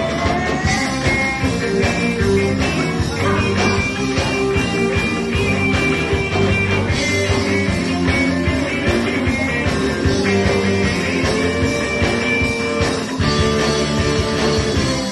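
Live ska band playing: electric guitars, keyboard and drum kit over a steady beat, with some long held notes.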